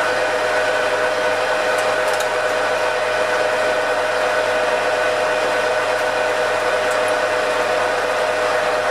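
Metal lathe running steadily with a carbide-insert tool cutting a step on a tractor steering shaft: a constant motor and drive tone over the hiss of the cut.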